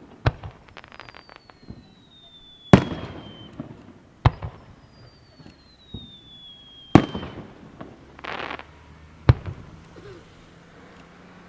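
Fireworks display: five sharp bangs of shells bursting. Two of the bangs come at the end of a long whistle falling in pitch, there is a brief crackle after the first bang, and there is a short hiss about eight seconds in.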